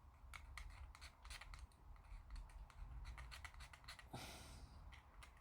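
Hobby scraper scratching paint off a plastic model kit part: a run of faint, quick scratches, with one longer scrape about four seconds in.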